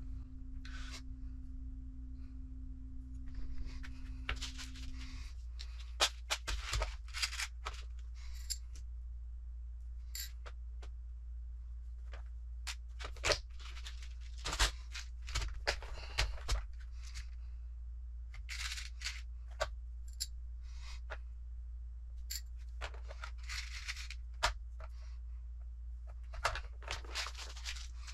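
Small plastic and metal kit parts being handled on a workbench: scattered light clicks and brief rustles as pieces are picked up and set down, over a steady low hum.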